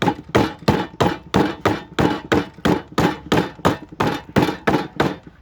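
Rapid, even blows of a hand tool into a cedar carving block, about three strikes a second, stopping suddenly near the end.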